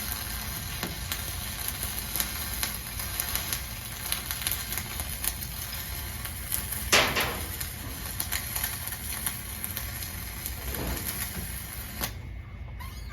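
Arc welding crackling and sizzling steadily with irregular pops, with one louder burst about seven seconds in; the arc cuts off about twelve seconds in.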